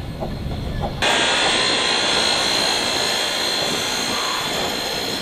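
Steam locomotive 644 chuffing softly at a slow pace, about three puffs a second; about a second in, a loud, steady hiss of escaping steam from the locomotive takes over.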